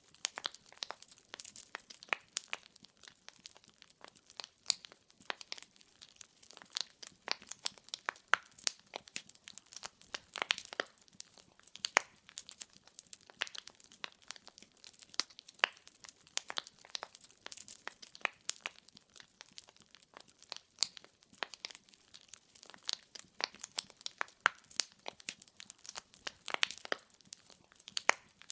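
Firewood burning in a fireplace, crackling and popping: many sharp, irregular pops every second over a faint hiss of flame.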